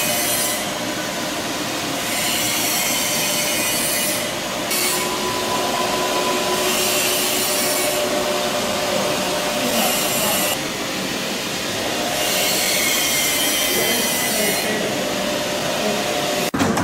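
Continuous machine running noise with a few steady hum tones underneath, its high hiss coming and going in stretches of two to four seconds.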